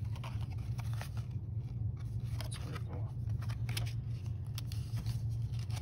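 1991 Upper Deck baseball cards being slid off a stack and flipped by hand: a string of short paper clicks and scrapes over a steady low hum.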